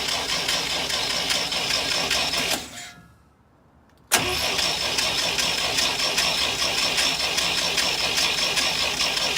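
1964 International Scout 80's four-cylinder engine being cranked over on the starter with the ignition coil disconnected, so it turns without firing, pumping oil through a new filter. Cranking stops about two and a half seconds in, and after a second and a half of near silence the starter kicks in again suddenly.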